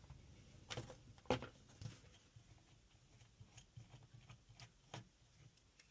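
Faint, irregular light clicks and taps of small parts and tools being handled on a work surface during a phone repair, a few louder knocks in the first two seconds and then smaller ticks.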